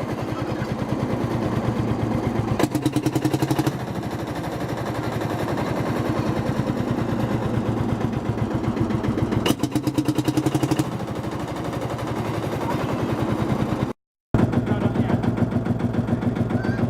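Series 3 Field Marshall's single-cylinder two-stroke diesel engine running through its rebuilt exhaust, a rapid, even string of loud exhaust beats. It grows louder briefly twice, and the sound cuts out for a moment near the end.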